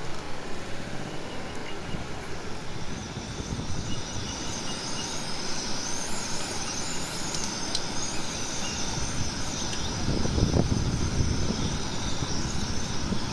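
Eggs and tomato sizzling in a hot black wok-style pan, the sizzle strengthening about three seconds in, over the steady rush of a river. A low rumbling gust swells near the end.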